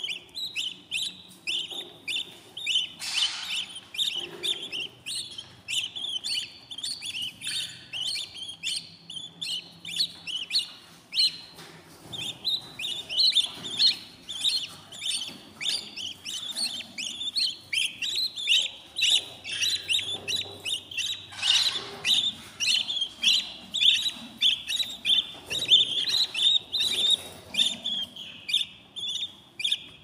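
Budgie chicks in a nest box chirping, a rapid unbroken run of short high peeps several a second, the begging calls of hungry nestlings. A few louder calls stand out, about three seconds in and again a little past twenty seconds.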